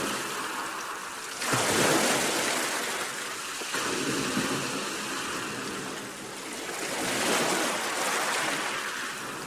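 Sea waves breaking: a continuous rush of surf that swells three times as waves come in.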